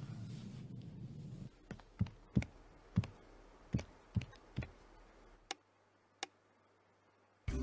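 Footsteps on a hard floor, about seven steps roughly two a second, after a faint low hum; two sharp clicks follow near the end.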